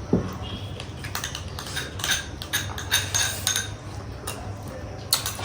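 Dishes and cutlery clinking at a meal: a dull knock just after the start, then a run of short clinks.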